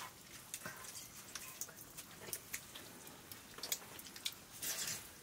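Faint scattered clicks and taps of fingers and metal plates while rice is eaten by hand, with a short splash of water poured from a brass jug near the end.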